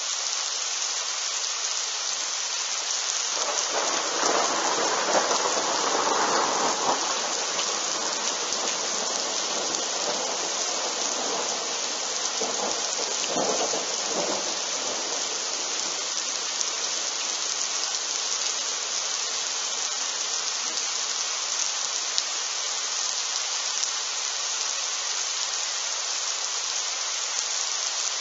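Steady rain falling during a thunderstorm. A rumble of thunder comes in a few seconds in and lasts a few seconds, and a second, shorter rumble follows near the middle.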